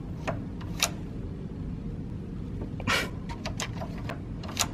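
Plastic hotel key card slid into and pulled out of an electronic card-slot door lock: scattered sharp clicks and a short scrape about three seconds in, as the card is tried twice before the lock accepts it.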